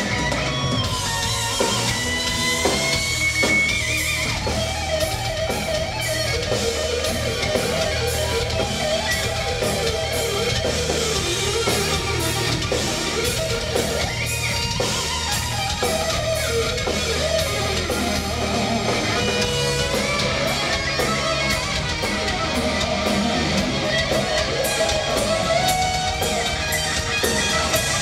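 Live heavy metal band playing an instrumental passage. An electric guitar carries the melody over drums and bass, and the sound is heard from the audience.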